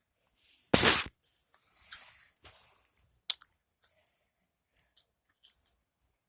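Close handling noise: a loud brief scrape or brush near the microphone about a second in, a softer rustle around two seconds, then a sharp click and scattered small clicks.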